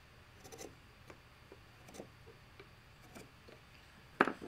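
Steel bench chisel pushed by hand, paring wood in a dado: a string of faint ticks and scrapes as the edge slices the fibres, then one sharp knock near the end.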